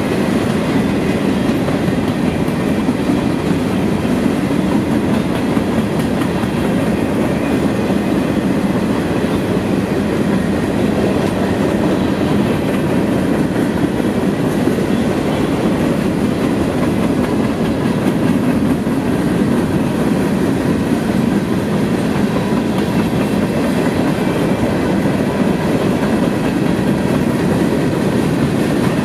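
Freight cars of a CSX freight train rolling past at steady speed: a continuous rumble of steel wheels on the rails, even throughout.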